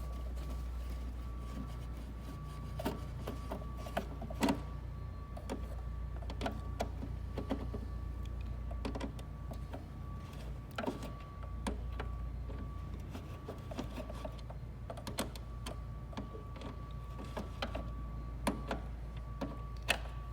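Screws being taken out of a cash register's case, with scattered small clicks and taps of the screws, tool and housing over a steady hum.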